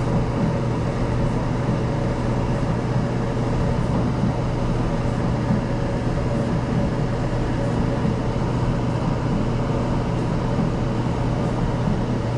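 Amana electric clothes dryer running on high heat: a steady motor and drum drone with a constant low hum. Its drum bearings sound like they could use replacing.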